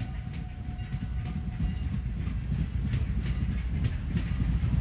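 Strasburg Rail Road No. 89, a 2-6-0 steam locomotive, running past with its train: a steady low rumble with repeated wheel clicks. A faint trace of its whistle fades out in the first couple of seconds.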